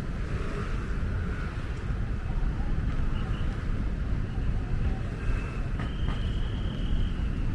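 Crowd ambience: many people talking indistinctly, under a steady low rumble of wind on the microphone, with a brief high steady tone about six seconds in.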